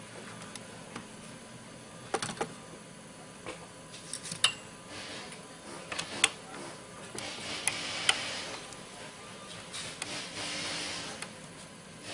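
Light clicks and knocks as an AK rifle is handled, then rubbing, scraping stretches as a T-handle driver turns out the pistol grip screw.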